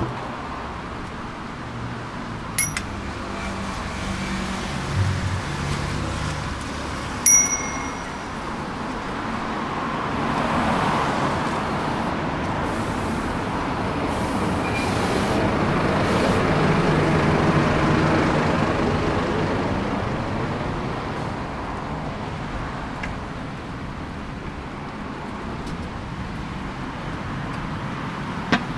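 Street traffic ambience. A passing vehicle swells up to a peak about two-thirds of the way through, then fades. Two short, ringing metallic dings come about five seconds apart near the start.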